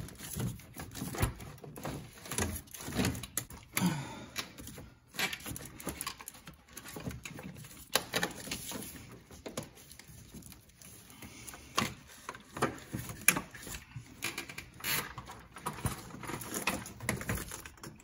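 Irregular clicks, knocks and rattles of hand tools and plastic and metal engine parts being handled while the intake manifold of a 5.3 V8 is being taken off.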